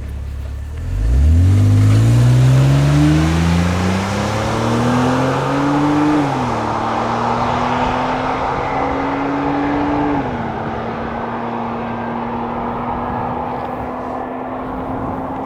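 BMW X3 E83 3.0i's M54B30 straight-six engine and exhaust pulling away hard: the engine note rises sharply about a second in and keeps climbing. Two upshifts drop the pitch about 6 and 10 seconds in, then it settles to a near-steady cruise with road noise.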